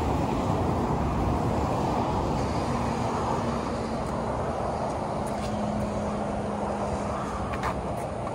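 Steady highway traffic noise from the multi-lane road under the bridge, with a low steady hum from a passing vehicle for several seconds in the middle.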